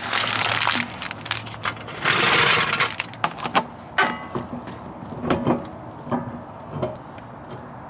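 Two short, loud bursts of a power wrench on the wheel's lug nuts, followed by a series of metallic clinks and knocks as nuts and spacers are handled at the hub.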